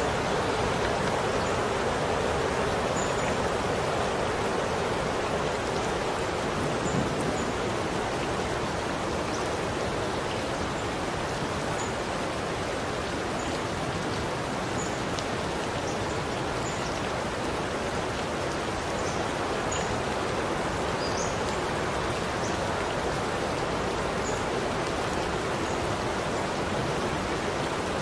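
Steady rain falling with an even hiss, with scattered faint ticks of single drops.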